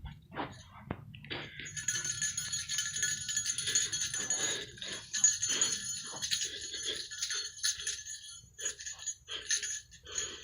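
Small jingle bells being shaken, jingling in uneven bursts, after a couple of light clicks at the start.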